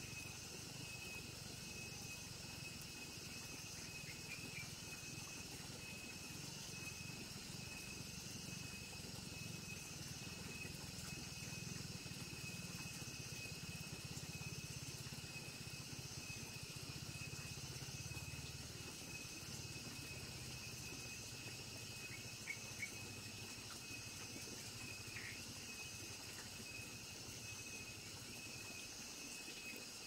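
Crickets and other night insects calling in a steady, high, pulsing chorus, several voices layered together. Under them is a low rumble that swells through the middle and fades near the end, and a few short high chirps come past the middle.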